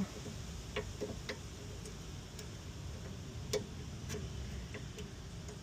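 Light, irregular clicks and taps of metal brake parts and tools being handled and fitted, roughly one every half second, the loudest about three and a half seconds in.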